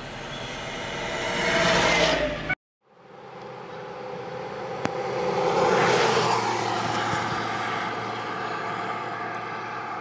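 Vehicle passing on the road, swelling up and cutting off abruptly about two and a half seconds in. After a brief gap a second vehicle passes, loudest around six seconds in, and fades away.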